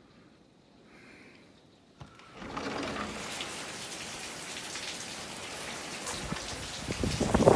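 Heavy rain pouring down, starting suddenly about two seconds in. Near the end it grows louder with a low rumble.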